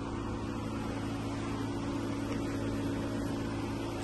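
Steady low mechanical hum with a droning tone, the background noise of an indoor car park.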